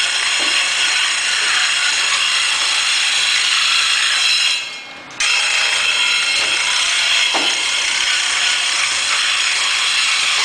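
Barnes treadle-powered jigsaw running and sawing wood: a steady rasping of the reciprocating blade with the mechanical clatter of its foot-driven ratchet drive. The sound dies away about halfway through and starts up again abruptly.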